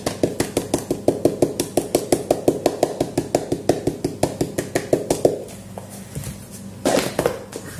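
A plastic tub of chocolate powder tapped rapidly by hand, about seven taps a second for some five seconds, to shake the powder out onto a plate. A brief clatter follows near the end.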